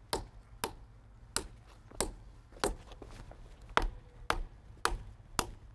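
Small steel hammer striking steel wedges set in feathers in a line of drilled holes in a granite block: about nine sharp metallic taps, roughly two a second, driving the wedges evenly to split the stone along the holes.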